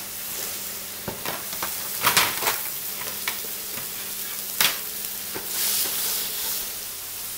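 Beef fillet searing in melting butter in a frying pan, sizzling steadily, the sizzle swelling for about a second near the end as the pan is moved. A few light knocks and clicks of pan and tray handling, the sharpest about two and four and a half seconds in.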